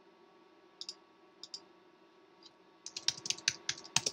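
Computer keyboard typing: a few scattered clicks, then a quick run of keystrokes about three seconds in as a search word is typed.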